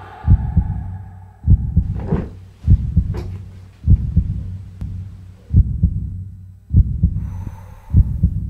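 Heartbeat sound effect: low double thumps repeating steadily, about one beat every 1.2 seconds. A couple of faint swishes come early on, and a short hiss about three-quarters of the way through.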